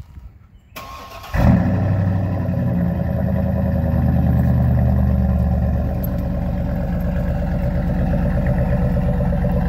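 Chevrolet Silverado pickup's engine remote-started, breathing through dual Flowmaster Series 10 mufflers. The starter cranks briefly about a second in, then the engine catches with a flare and settles into a steady fast idle. The idle drops a little about six seconds in.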